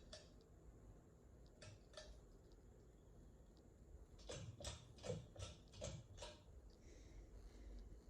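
Hunter Stratford ceiling fan running faintly with a low hum, with a few scattered clicks and then a run of about seven quick clicks past the middle.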